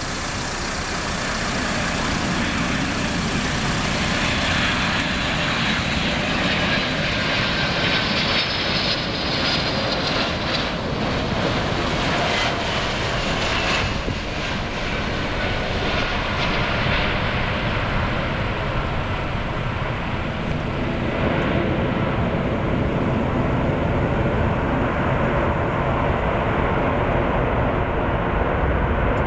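Boeing 747-400's four jet engines on landing: a loud, steady roar with a high whine that slides down in pitch as the airliner passes close by on the runway. After that it becomes a deeper rumble as the jet rolls away down the runway.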